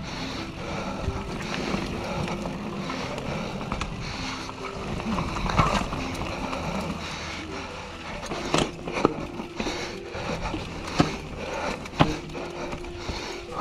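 Norco Range A1 mountain bike rolling down a rocky dirt trail: tyres crunching over dirt and stones, with the bike rattling and a few sharp knocks as it hits rocks. Background music plays underneath.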